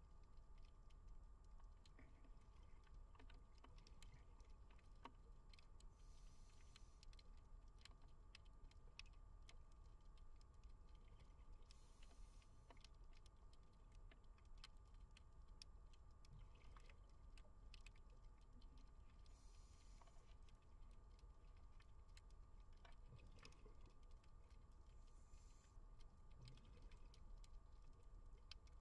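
Very faint underwater ambience: continuous fine crackling and ticking, with a faint hiss about every six to seven seconds, typical of a scuba diver's regulator breaths.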